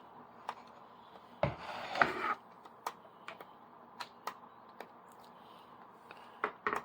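Scattered clicks and knocks from handling a cordless vacuum cleaner that will not start, with a louder burst of rattling knocks about one and a half seconds in and a couple more near the end; no motor runs.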